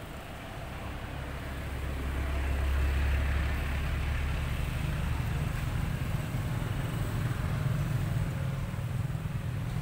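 A motor vehicle's engine rumbling, growing louder over the first three seconds and then holding steady, its pitch shifting upward about halfway through.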